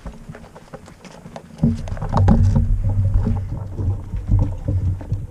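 Low buffeting noise on a body-worn camera's microphone, setting in suddenly about a second and a half in, with scattered footsteps and crackles of dry grass and twigs underfoot.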